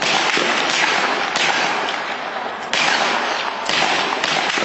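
Gunfire from live ammunition: several sharp shots at uneven intervals, each trailing off in a long echo.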